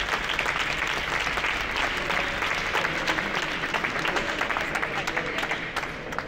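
Audience applauding, a dense patter of many hands clapping that begins to fade near the end.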